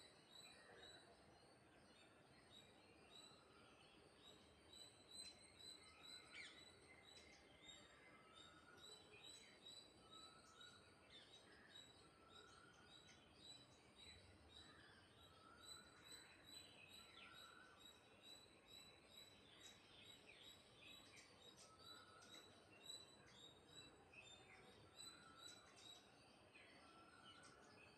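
Faint bird chirps: short notes repeated every second or two, with quicker high-pitched twittering among them.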